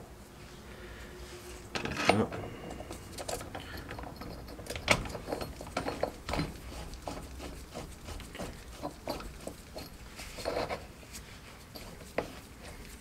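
Metal sockets and tools clinking and knocking as they are handled and set in place to press out a silent block bushing: irregular clicks and taps, the sharpest about five seconds in.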